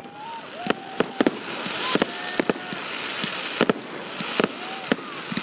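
Fireworks going off: sharp bangs and pops at irregular intervals, about two a second, over a steady crackling hiss.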